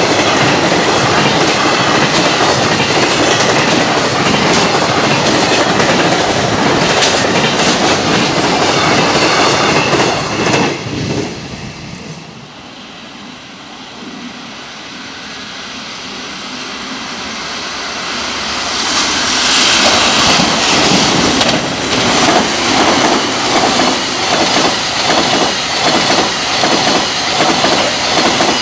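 Freight trains passing on rail. The rolling clatter of one container train fades away about eleven seconds in; a second freight train then approaches, growing louder, and passes with a regular clickety-clack of wagon wheels striking the rail joints.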